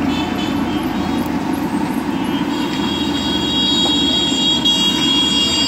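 Steady street traffic noise, with a long high-pitched tone joining about two and a half seconds in.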